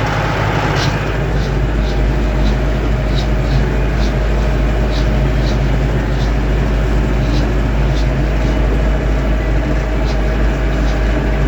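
Lovol M504 tractor driving at road speed, above 25 km/h: a steady drone from the engine and drivetrain, with a light high tick repeating about twice a second. The owner hears a noise from the gearbox at this speed and asks what is making it.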